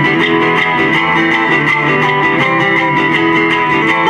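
Acoustic guitar strummed in a quick, even rhythm, playing an instrumental passage between sung lines.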